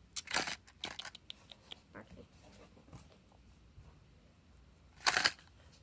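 Cardboard subscription box and its fold-out insert being handled and set down: a few rustles and light clicks over the first three seconds, then a short, louder rush of noise a little after five seconds.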